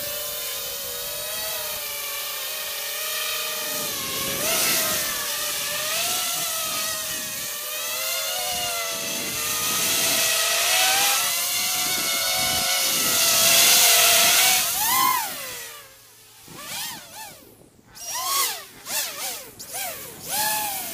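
Griffin 250 FPV racing quadcopter's four brushless motors and propellers whining in flight, the pitch rising and falling with the throttle. About two-thirds of the way in it sweeps up, then the throttle is chopped and the whine drops away, followed by several short throttle blips.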